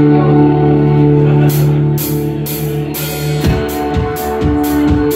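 Live rock band opening a song: electric guitars ring out in long held chords, cymbal hits come in after about a second and a half, and the full drum kit enters with a steady kick-drum beat about three and a half seconds in.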